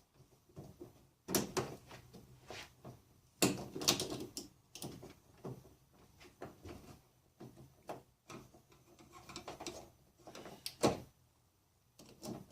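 Flat-tip screwdriver prying and scraping at a stuck door lock cylinder inside a pickup truck door: irregular metal clicks, scrapes and knocks, the loudest about a second in, around three and a half to four seconds in, and near eleven seconds in.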